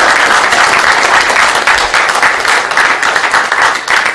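Audience applauding, a steady dense clapping that begins to thin out near the end.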